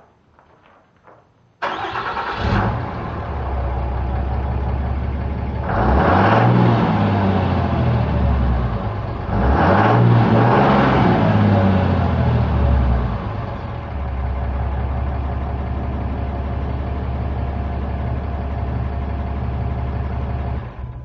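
Car engine breathing through a newly installed Magnaflow XL series muffler: it cranks and catches about a second and a half in, settles to a steady idle, is revved up and back down twice, then idles again and is shut off near the end.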